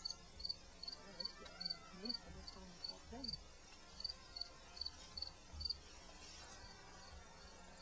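A cricket chirping in an even rhythm, about two and a half high chirps a second, stopping about six seconds in.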